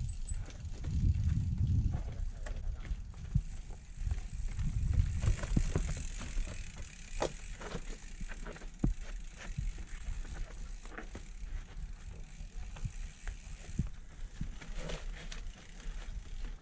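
Mountain bike ridden downhill over a loose, rocky trail: the frame and chain rattle and knock over the stones, with the freewheel ticking as it coasts. A low rumble is strongest in about the first six seconds.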